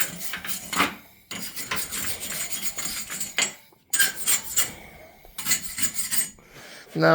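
Wire brush scrubbing a freshly welded steel frame, metal scraping on metal in quick strokes. It comes in several bouts of about a second or two, with short pauses between them, as the weld is cleaned before painting.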